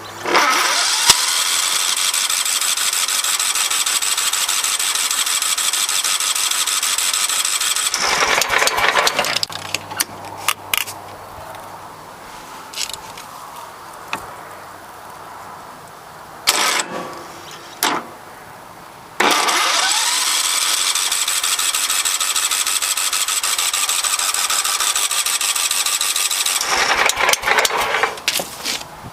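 Electric starter cranking a 17.5 HP Kohler engine in two long attempts of about eight and seven seconds, a whirring whine over a fast even pulse, with quieter clicks and knocks between them. The engine turns over but does not start; the owner suspects no compression.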